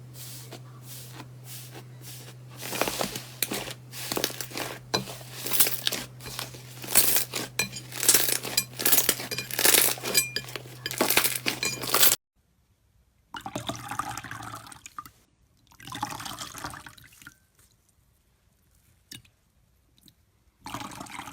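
Slime being pressed and squished by hand. For about the first twelve seconds it gives off dense crackling clicks over a low steady hum; after a sudden cut come softer, separate wet squishes.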